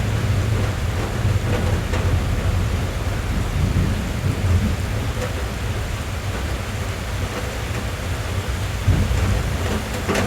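Steady rain drumming on a car's roof and windows, heard from inside the cabin as a dense patter over a deep low rumble, with one sharper tap near the end.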